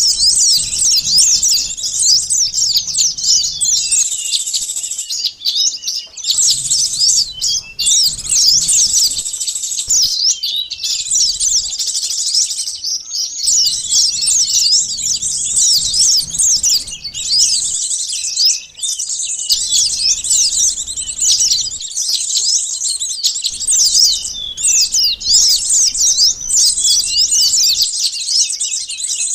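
A bird-lure recording of sunbirds: many small birds giving dense, rapid, high-pitched chirps and twitters, overlapping with no letup, with short breaks every few seconds. It is a lure call meant to draw wild sunbirds in.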